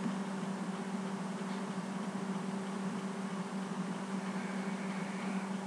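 Steady low hum with an even hiss behind it: room and microphone background noise, with no other event standing out.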